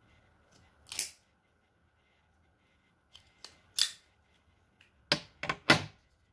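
Small metal cigar cutter clicking shut on a cigar: a series of sharp snaps, four loud ones (about a second in, near four seconds, and twice between five and six seconds) with a few fainter clicks between.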